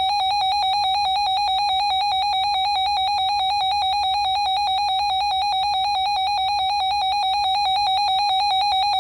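Weather alert radio sounding its warning alarm: a high electronic beep pulsing rapidly at a steady level, triggered as a new severe thunderstorm warning comes in.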